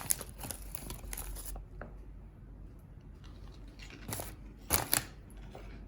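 Plastic snack bag crinkling for the first second and a half, then two sharp crunches about four and five seconds in as a popped rice crisp is bitten into.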